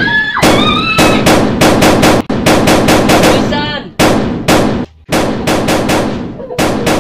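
Rapid gunfire, about three shots a second in uneven volleys with brief pauses, loud and sharp, as in a barracks attack.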